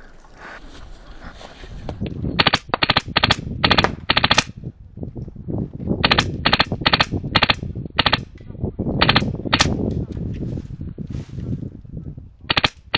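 HPA airsoft rifle, an MTW Wolverine, firing many short rapid bursts of sharp shots. They come in runs: one from about two to four and a half seconds in, another from about six to eight seconds in, and more near the end.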